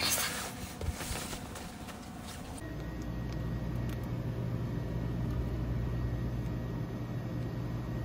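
Rustling and a soft knock, then, from about two and a half seconds in, the steady low hum of a shop's refrigerated drinks cooler, with a faint high whine over it.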